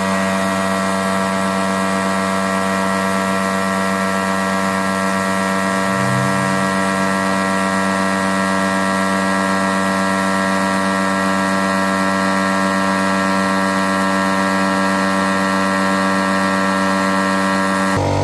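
INGCO 24-litre air compressor running steadily, its motor and piston pump giving a loud, even hum with a hiss over it, then stopping abruptly at the very end.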